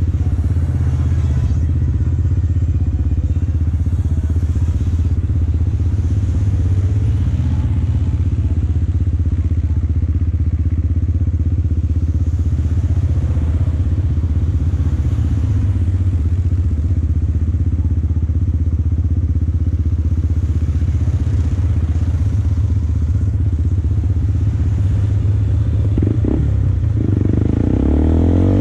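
Single-cylinder four-stroke engine of a 2004 Yamaha Bear Tracker ATV with an FMF aftermarket exhaust, running steadily under way at an even pitch and picking up speed near the end.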